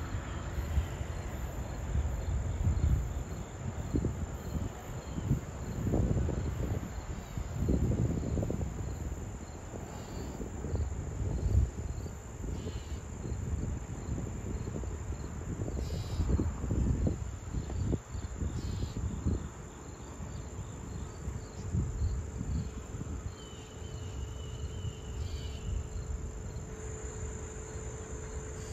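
Crickets and other insects trilling in a steady high chorus, with a fainter chirp repeating several times a second. Irregular low rumbling gusts run underneath.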